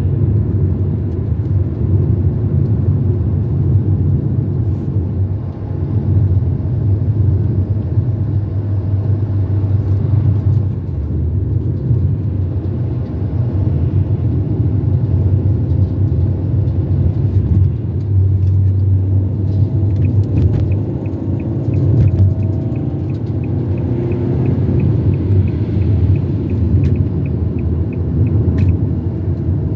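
Car road noise heard from inside the cabin while driving: a steady low rumble of engine and tyres. In the second half a light regular ticking runs for several seconds.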